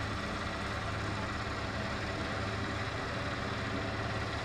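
A steady low mechanical hum, like an engine running, under a constant even background noise.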